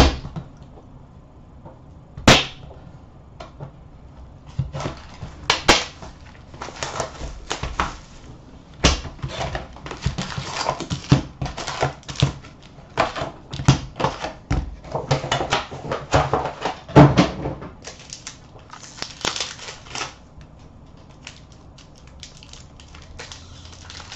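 Hands opening a hockey card hobby box and pulling out its foil card packs: a sharp snap of cardboard about two seconds in, then a long run of crinkling and rustling as the packs are taken out and stacked.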